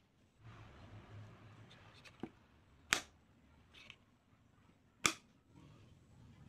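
Handling of a handmade bamboo-and-wood toy pistol: rustling for a second or so, a small click, then two sharp clicks about two seconds apart.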